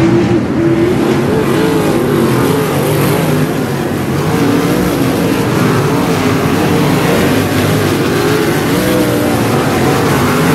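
A field of 305 sprint cars with small-block V8 engines running around the dirt oval. The several engine notes rise and fall again and again as the cars go on and off the throttle.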